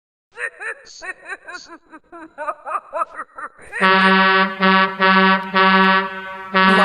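Intro of a dance song: a quick run of short chirps that rise and fall in pitch, then a deep truck air horn sounding in several long blasts over the start of the beat.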